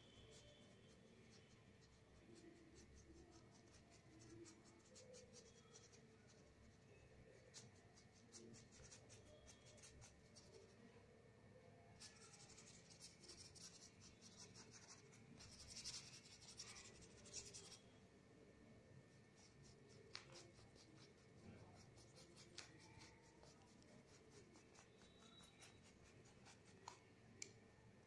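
Faint paintbrush strokes brushing and scratching across paper, with a busier run of strokes around the middle.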